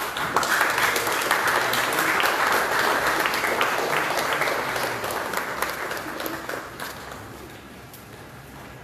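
Audience applauding. The clapping starts suddenly and dies away over the last couple of seconds.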